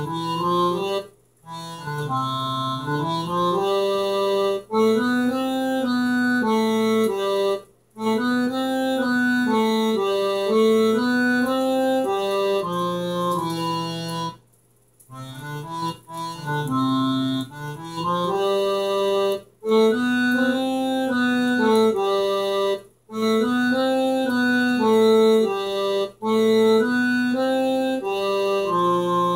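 An old home organ played with both hands: a simple tune of held notes over sustained lower chords, repeated about four times. The sound cuts off completely in brief breaks between phrases.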